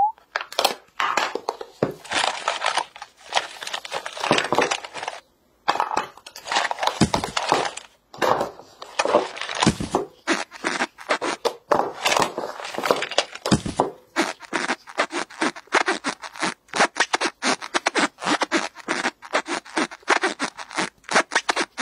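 Blue kinetic sand being squeezed, pressed into a plastic mould and torn by hand: a run of short crunching, crackling scrunches with brief pauses, coming quicker and more evenly in the second half.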